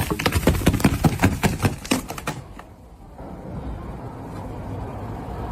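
A rapid run of sharp clicks or taps, about eight to ten a second, for roughly two seconds, then a steady low rushing noise.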